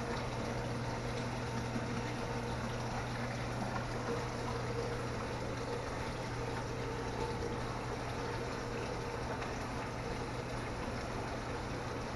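Steady water noise from a saltwater pond's circulation: water running with a low, even pump hum beneath it.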